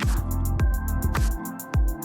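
Electronic background music with a steady beat: deep kick drums, quick hi-hat ticks and sustained bass and synth notes.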